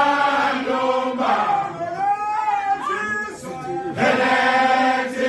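A crowd of Zulu men chanting a traditional song together, in loud held phrases with gliding pitches.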